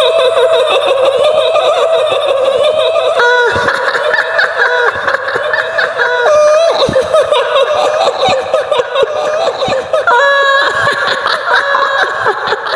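A woman's high-pitched, wavering cackle, the drawn-out laugh of the kuntilanak ghost of Indonesian folklore, held almost without pause. The pitch jumps about three seconds in and again near ten seconds.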